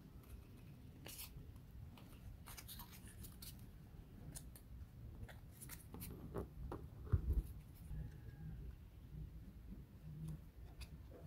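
Small thin wooden puzzle pieces being handled and fitted together: scattered light clicks, snaps and scrapes of wood on wood, with one louder low knock about seven seconds in.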